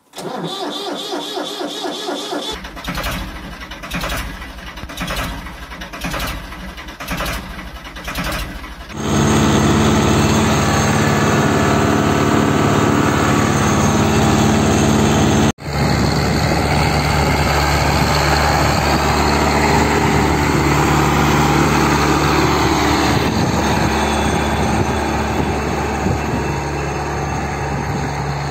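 Several seconds of pulsing intro sounds about once a second. Then a Kartar 4WD tractor's diesel engine runs steadily. After a cut about halfway in, the tractor's engine works as it pulls a tined cultivator through ploughed soil.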